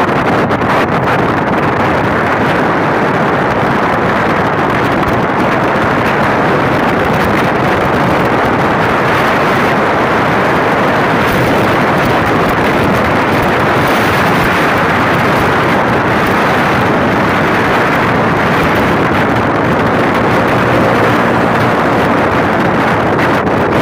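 Steady wind rush over the microphone of a motorcycle moving at speed, loud and unbroken, with no engine note standing out.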